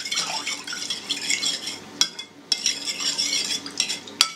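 Metal spoon stirring yeast into warm water in a mixing bowl, scraping and clinking against the bowl, with a short pause and two sharp clinks, about two seconds in and near the end.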